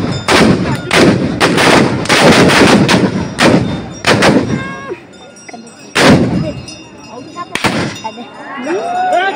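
A ragged volley of long-barrelled black-powder guns, shot after shot in quick succession for about five seconds. Then two single shots about a second and a half apart, with shouting voices near the end.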